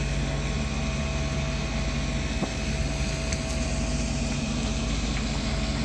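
Car ferry's engines running under way with a steady low drone and a steady hum over it.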